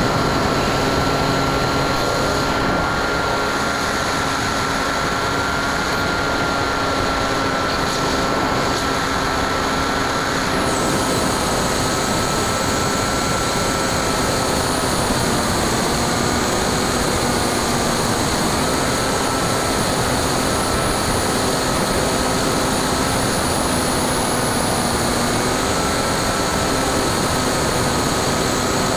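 Brushless electric motor (NTM Prop Drive 35-30A, 1400kv) spinning a 9x6 propeller on a Bixler 2 RC plane in flight, heard from the onboard camera: a steady high whine over a rushing hiss, its pitch dipping slightly a few times.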